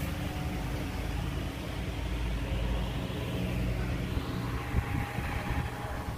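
Steady low hum and rumble of electric wall fans and air conditioning running in a room, with a couple of soft knocks near the end.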